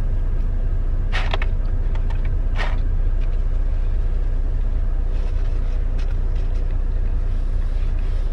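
Semi-truck diesel engine idling with a steady low rumble, heard from inside the cab, with two short noises about one and two and a half seconds in.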